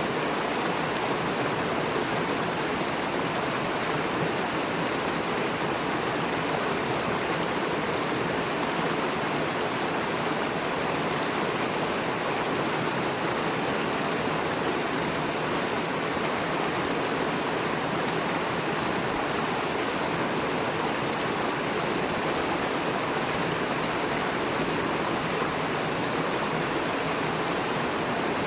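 Fast-flowing river rushing over and between rocks: a steady, even water rush.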